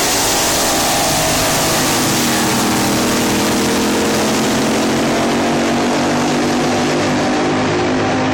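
Blown alcohol drag boat engine running loud and steady, its pitch sliding down a little over the first few seconds and then holding, over a heavy hiss.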